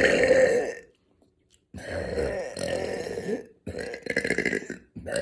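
A woman burping, several times in a row: one burp trailing off in the first second, a long one lasting about a second and a half, then a choppier, pulsing one and a short one near the end.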